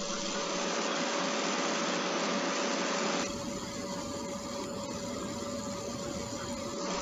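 A steady hiss-like noise with a constant hum running under it; about three seconds in, it cuts to a quieter, lower rumbling ambience.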